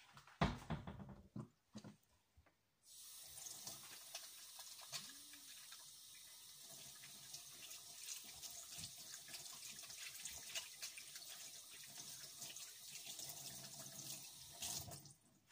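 Kitchen tap running steadily into a stainless-steel sink while a bowl is rinsed under it. The water comes on about three seconds in and is shut off suddenly near the end, after a few light knocks at the start.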